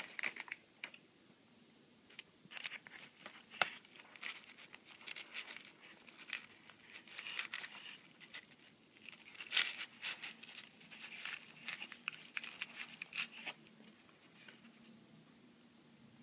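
Crinkling and crackling of a pizza's paper tray and its cooking sheet as a slice is torn from a microwaved frozen margherita pizza, in irregular bursts for about ten seconds before it dies down.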